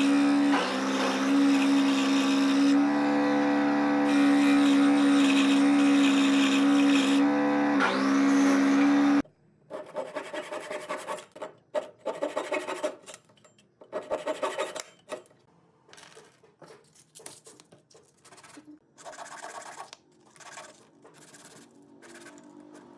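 A scroll saw motor runs steadily while cutting into a small piece of hardwood, then stops abruptly. Next come bursts of rapid strokes from a fine-toothed hand saw cutting a wooden peg flush, and near the end softer rhythmic rubbing of small wooden pieces on sandpaper.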